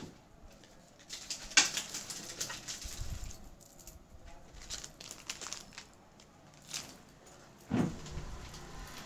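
Handling noise from a gold-plated necklace with red drops and a yellow thread: light metal clinks, taps and rustles as the pendant and thread are worked in the hands. There is a sharp click about one and a half seconds in and a dull thump near the end.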